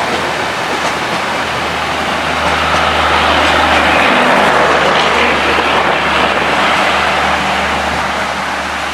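Passenger train running slowly past through heavy rain: a steady rumble and rush of noise with a low hum underneath. It grows louder to about halfway through, then eases off.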